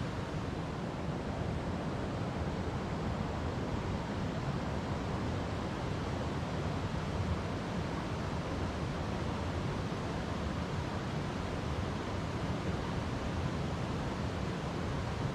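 River water flowing over rocks, a steady, unbroken noise heaviest in the low range.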